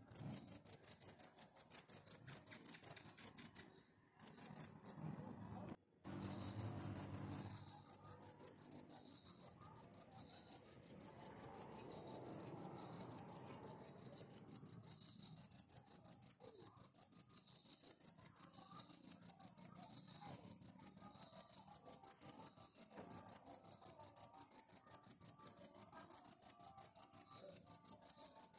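A cricket chirping steadily: a high-pitched trill in fast, even pulses, broken off briefly twice in the first few seconds.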